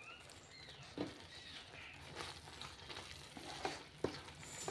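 Wooden spatula stirring a thick, simmering citron pickle in a non-stick pan, with a few short scrapes and taps against the pan over a faint sizzle.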